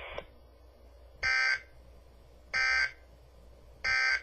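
Three short, buzzy digital data bursts about 1.3 seconds apart, played through a weather radio: the SAME end-of-message code sent by Weather Radio Canada to close an alert test broadcast.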